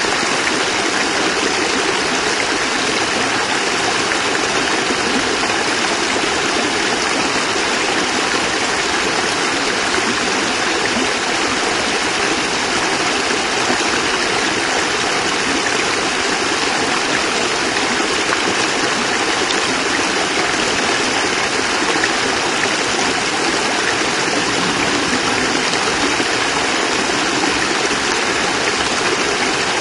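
Water of a small cascade running over rocks, an even, steady rushing splash.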